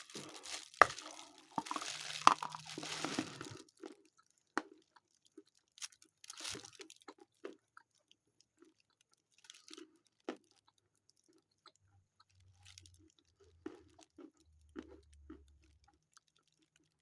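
Biting into a lump of edible Khrapovsky chalk: two sharp snaps about one and two seconds in over a crunching crackle, then quiet, sparse chewing as the semi-sandy chalk breaks down quickly in the mouth.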